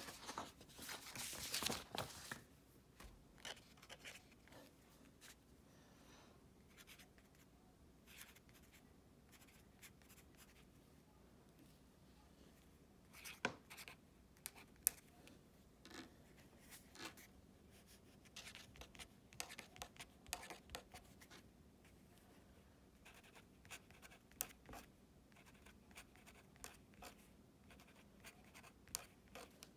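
Felt-tip marker writing on paper, in short scratchy strokes with pauses between numbers. There is a louder rustle in the first two seconds.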